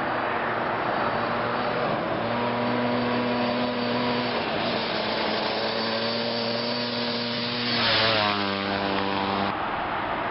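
Hill-climb race vehicle's engine running hard as it climbs toward the listener, its note breaking twice early on, then rushing past about eight seconds in, loudest there, with the pitch dropping as it goes by.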